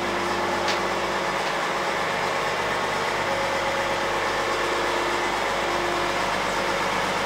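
Fishing boat's engine running steadily, a constant hum with wash of noise and no change in pace.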